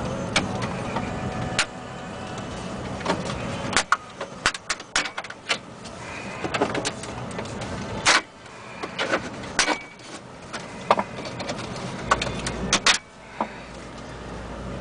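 Plastic retaining clips of a 2012 Chevrolet Silverado's dash trim bezel clicking and cracking as the panel around the radio is pried loose with a plastic pry tool: a string of sharp, irregular snaps from about four seconds in until near the end. A steady low hum runs underneath in the first few seconds.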